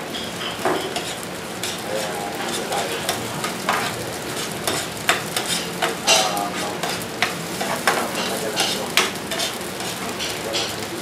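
Tomato sauce with onions and garlic sizzling in oil in a frying pan on a gas burner, stirred with a metal spoon that scrapes and clicks against the pan many times at an uneven pace.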